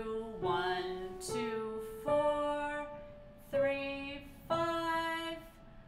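Yamaha digital piano playing a slow single-note right-hand melody, five notes struck one at a time and each held, rising and falling in a small range around middle C to A above it.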